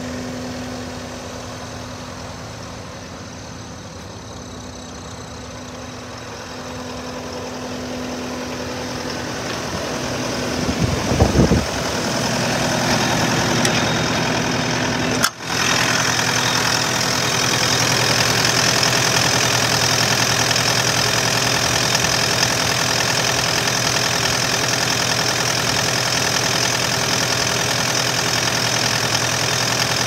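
Kubota SSV65 skid steer's four-cylinder diesel engine idling steadily. It grows louder in the second half as it is heard closer to the engine compartment. A brief low rumble comes about eleven seconds in, and the sound drops out for a moment a few seconds later.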